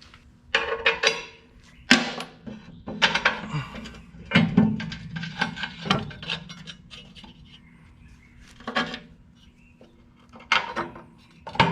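Steel parts clanking and scraping as fabricated hitch brackets are fitted onto a tiller's 3-point hookup: irregular metallic knocks and rubbing every second or so, over a steady low hum.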